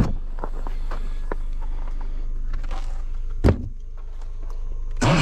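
Car's rear hatch swinging open, with a steady hum, a clunk about three and a half seconds in, and a louder bump at the very end.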